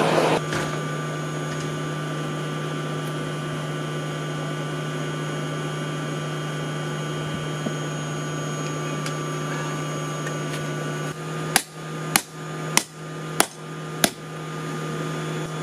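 A loud rush of the coal forge under its air blast cuts off in the first half second, then a steady electric hum runs on. About eleven and a half seconds in, a hammer strikes the hot railroad spike on the steel anvil five times, sharp ringing blows a little over half a second apart.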